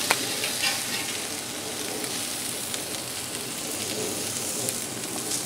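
Steady sizzle of sliced pork chops frying on a Blackstone flat-top griddle, with a metal spatula clicking once against the griddle near the start.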